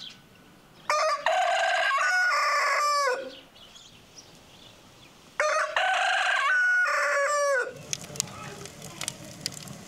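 A rooster crowing twice, each crow about two seconds long and ending in a falling note.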